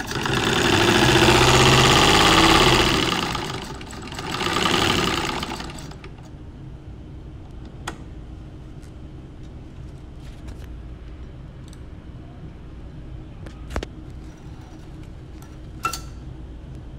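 Antique electric sewing machine stitching, its motor worked by the knee lever: a run of about three and a half seconds that speeds up and slows down, then a second, shorter run about four seconds in. Afterwards a low steady hum with a few sharp clicks.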